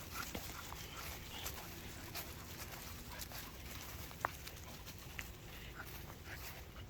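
Kerry Blue Terrier puppies moving about: faint scattered ticks and rustles, with one sharp click about four seconds in, over a low steady rumble.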